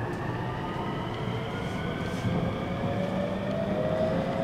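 521 series electric train accelerating away from a station, heard from inside a motor car: the traction motors and inverter whine in several tones that climb steadily in pitch as the train gathers speed, over a low rumble of wheels on rail.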